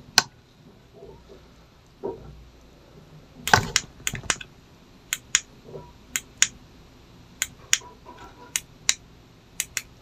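A run of sharp small clicks, many in close pairs about a third of a second apart, from buttons being pressed on a Sonoff RF relay module and its key-fob remote while pairing them.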